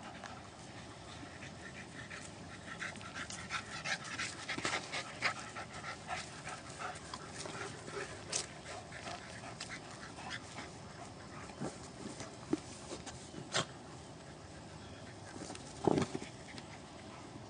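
Dogs panting hard during rough play, with scattered short, sharp sounds and a louder one near the end.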